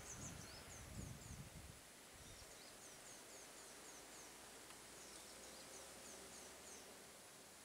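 Faint jungle ambience: a bird repeating short, high, falling chirps about twice a second over a steady insect-like hiss. Low thuds fade out about two seconds in.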